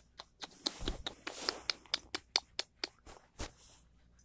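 Light clicks and scrapes on the bars of a wire pet crate, a dozen or so sharp ticks with soft rustling in the first half.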